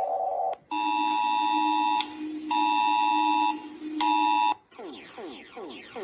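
Electronic emergency-alert alarm tones: a steady tone cuts off about half a second in, then a two-tone alarm sounds three times (long, long, short). About four and a half seconds in it gives way to falling electronic sweeps repeating about three times a second.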